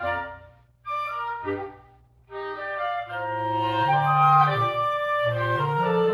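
Woodwind quintet playing live: two short chords cut off by brief silences, then a sustained passage of several instruments together, with flute and clarinet on top and low bass notes underneath.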